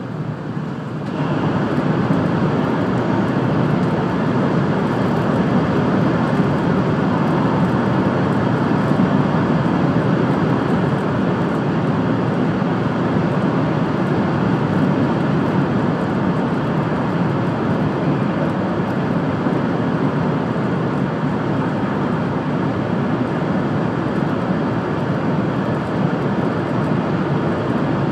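Running noise of a 700 Series Rail Star Shinkansen, heard from inside the passenger car. It jumps louder about a second in as the train enters a tunnel, then stays a steady, even rumble inside the tunnel.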